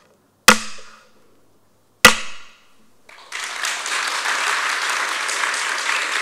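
Two sharp cracks of a kodan storyteller's hariōgi, the paper-covered fan, struck on the wooden lectern, about a second and a half apart. Audience applause starts about three seconds in and carries on.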